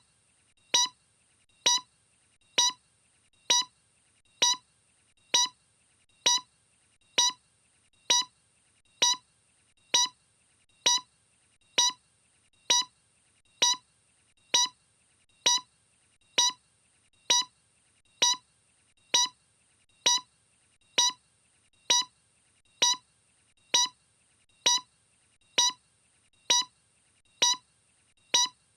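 Short electronic beeps, all identical, repeating at a steady pace a little faster than once a second.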